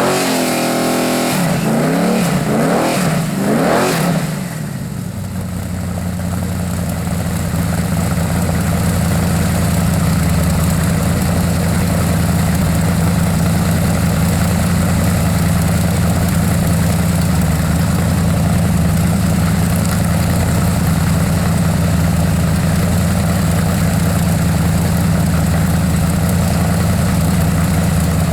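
Small-block Chevrolet V8 revved in several quick rises and falls, then dropping about four or five seconds in to a steady idle.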